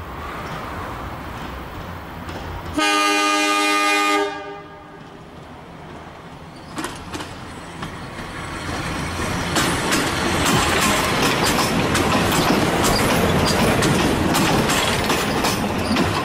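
Walker diesel railcar sounding one horn blast of about a second and a half near the start, then running over a level crossing close by. Its engine and wheels grow loud, with wheels clicking over the rail joints, and it is loudest in the last six seconds.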